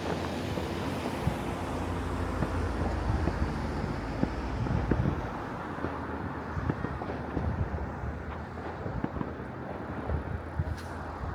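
Wind rumbling on the microphone, with scattered distant firework bangs and a sharper crack near the end.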